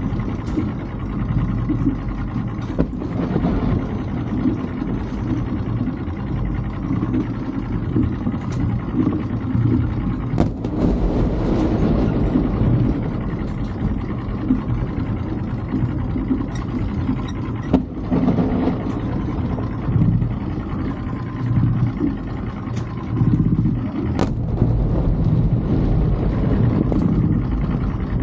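Boat's outboard motor running steadily at low speed. A few distant firework bangs cut through it, several seconds apart.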